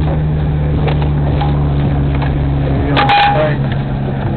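A car's engine running, heard from inside the cabin as a steady low hum. About three seconds in there is a short, sharper sound with a brief tone.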